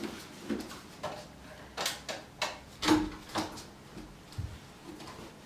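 A string of light knocks and clicks, the loudest about three seconds in: an interior wooden door's handle and latch being worked as the door is pulled open, with footsteps on a wooden floor.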